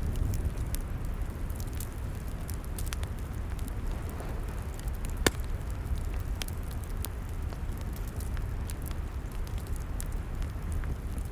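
Log fire crackling, with scattered sharp pops and one louder pop about five seconds in, over a steady low rumble.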